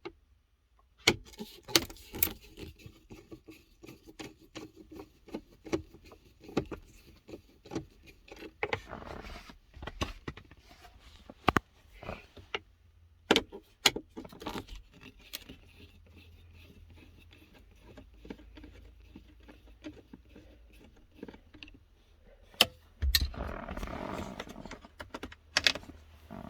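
Hands working at a car's plastic centre-console trim with a screwdriver: scattered sharp clicks, small rattles and scrapes of screws, tool and plastic parts, with a louder stretch of rustling and scraping near the end.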